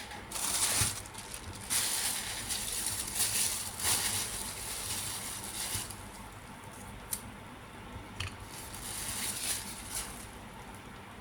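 Irregular bursts of scraping and rustling, several in the first half and a few more near the end.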